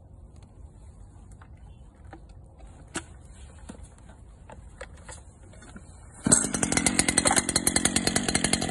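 Stihl FS 460 C brushcutter's two-stroke engine catching abruptly a little over six seconds in, then running loud with a fast, even pulsing beat. Before that, only a few faint clicks of handling.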